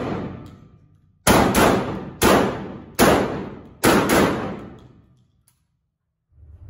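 Six shots from a Hatsan Escort DF12 12-gauge semi-automatic shotgun fired in quick succession, some in close pairs, each echoing through an indoor firing range and dying away about a second after the last shot.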